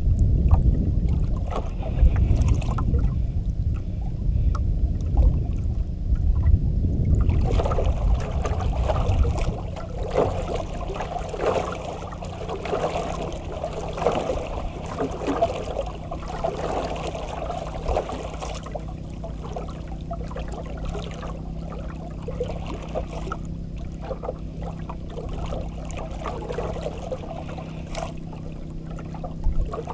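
Water sloshing and gurgling against the hull of a small wooden outrigger boat, irregular and uneven. A heavy low rumble fills the first seven seconds or so, then gives way to the sloshing over a faint steady low hum.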